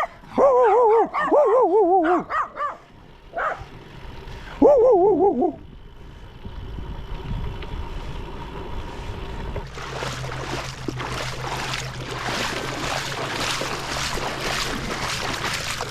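A dog barking with wavering, drawn-out yelps several times in the first five seconds. From about ten seconds in comes a steady rush of wind and tyre noise from a bicycle rolling on a gravel road.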